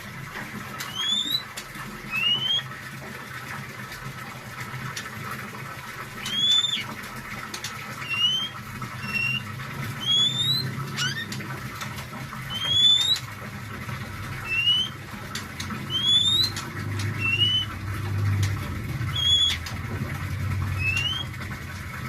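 A caged songbird giving short rising whistled calls, about a dozen of them, one every second or two.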